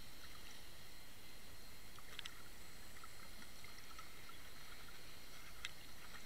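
Underwater ambience heard through a Water Wolf camera's sealed housing: a steady hiss with scattered faint clicks, and two sharper ticks about two seconds in and near the end.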